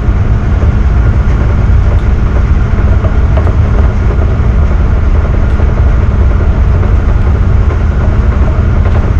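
Tugboat's diesel engines running steadily under load, a loud low rumble with a constant hum, while its propeller churns up wash astern.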